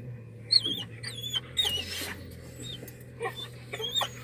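Dog whining in a string of high-pitched, wavering whines, wanting the car window opened.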